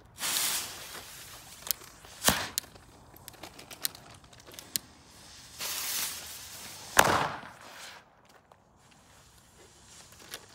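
Two Cobra Mini firecrackers going off one after the other. A short hiss comes before each bang. The first sharp bang is about two seconds in, and a second, louder bang follows about seven seconds in.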